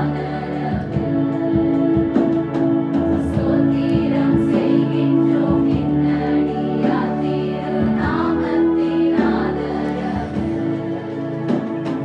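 A group of women singing a song together, accompanied by an electronic keyboard playing sustained chords under the voices.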